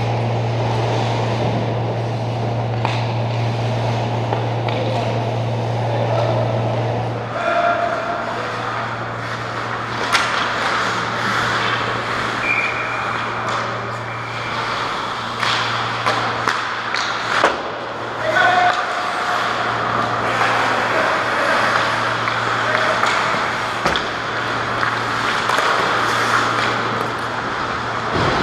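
Ice hockey play heard from rinkside behind the goal: skates scraping the ice, sharp clacks of sticks and puck, and players' short shouts, over a steady low hum. The hum drops in level about seven seconds in.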